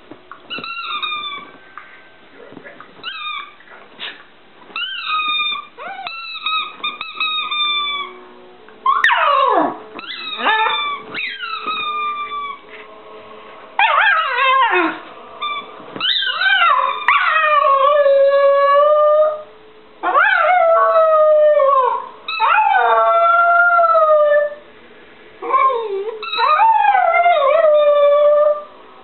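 Smooth fox terrier howling. It begins with short yips and whines, then from about nine seconds in gives longer howls that slide down in pitch, several of them held for two to three seconds.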